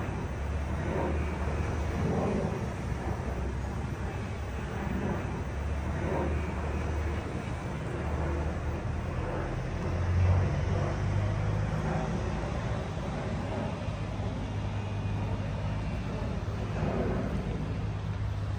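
Steady low rumble of vehicles running in the distance, with no close, distinct sound over it.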